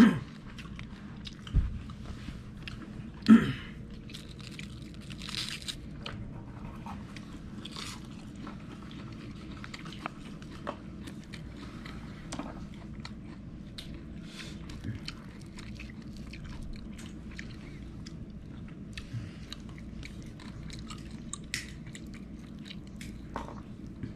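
A person eating cooked mullet up close: steady chewing with many small crunches and clicks, and a few louder knocks in the first few seconds.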